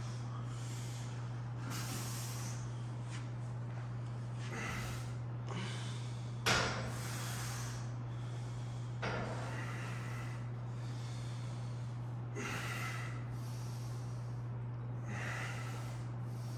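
A man's forceful breathing while doing lat pulldowns on a cable machine, a noisy exhale every two to three seconds with the reps, over a steady low hum. About six and a half seconds in there is one sharp knock, the loudest moment.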